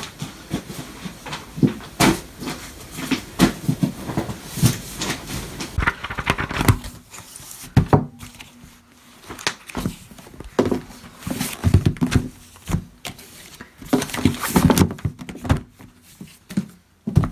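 Boxes and thick books being set down, stacked and shuffled on a desk: an irregular string of knocks, thumps and scraping rustles.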